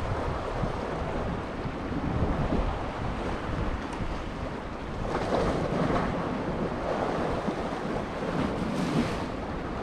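Sea surf washing against shoreline rocks, with wind buffeting the microphone; the wash swells louder about five seconds in and again near the end.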